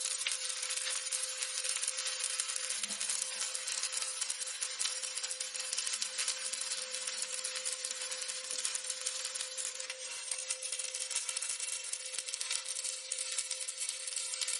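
Stick (SMAW) welding arc crackling steadily as a bead is run, with a steady hum underneath.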